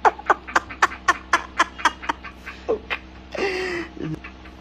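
A man's rapid cackling laughter: a quick string of short falling whoops, about four a second, that breaks off about three seconds in, followed by a short raspy sound.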